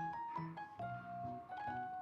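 Background music: a light piano-style melody over a steady bass line.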